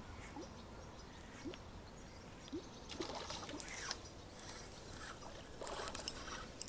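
Faint popper lure being twitched across a still pond, giving a small bloop about once a second. A spinning reel is being wound near the end.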